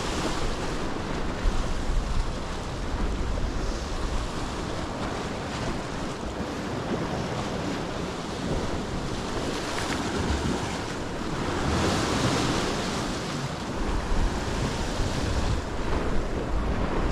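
Sea waves washing against a rocky shore, with strong gusty wind buffeting the microphone. The surf swells louder about two-thirds through.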